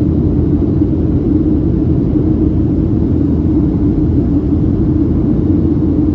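Cabin noise of a Boeing 737-700 climbing out, heard from a window seat over the wing: its CFM56-7B engines running at climb power with airflow over the fuselage, a steady low rumble with a constant hum in it.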